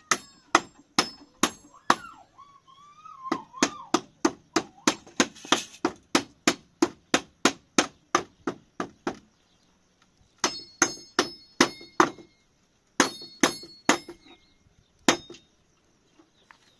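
Hammer driving nails: runs of sharp blows about three a second, broken by short pauses, some blows with a brief metallic ring.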